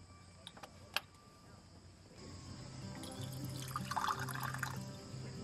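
Water pouring from a Stanley water jug's spigot into the aluminium base of a moka pot for about a second near the end. Before that come two light clicks as the moka pot's metal parts are handled, and background music comes in about two seconds in.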